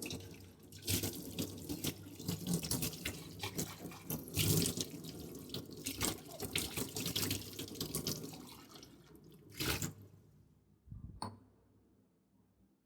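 Tap water running into a sink as metal kitchen vessels are washed, with irregular clinks and knocks. It stops about eleven seconds in.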